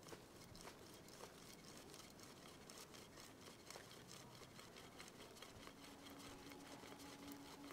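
Very faint scratching and clicking of a Swiss Army knife awl (reamer) turning quickly in a wooden branch as a hole is drilled. A faint steady hum comes in about two-thirds of the way through.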